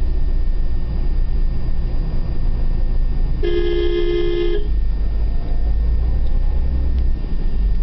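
Car being driven, heard from inside the cabin: a steady low rumble of engine and road noise, with one car horn blast about a second long midway through.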